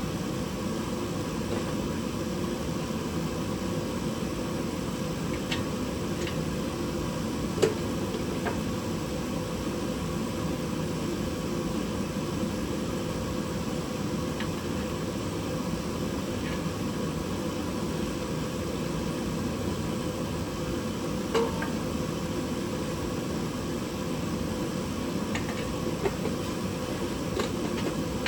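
Steady mechanical whir and hum of a running machine, with a few short sharp clicks and taps; the two loudest come about eight seconds in and about twenty-one seconds in.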